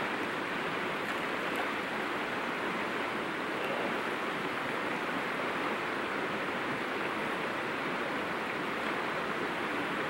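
River water flowing over a rocky bed: a steady, even rush.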